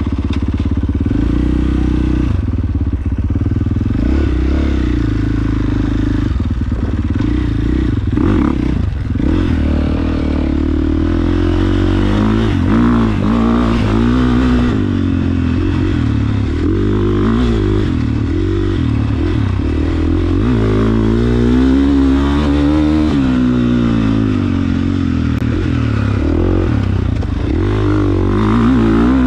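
KTM 450 single-cylinder four-stroke motocross bike engine running and revving as it is ridden, its pitch repeatedly rising and falling.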